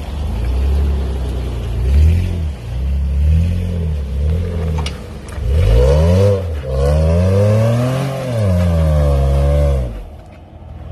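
Jeep Wrangler JKU engine revving hard in repeated bursts while mud bogging, the pitch climbing and falling several times, with a long rev in the second half before it drops off near the end.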